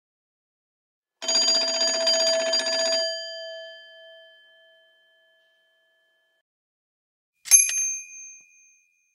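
A bell rung in a rapid trill for about two seconds, which then stops and rings out. About four seconds later a second, higher-pitched bell is struck a few times in quick succession and rings briefly.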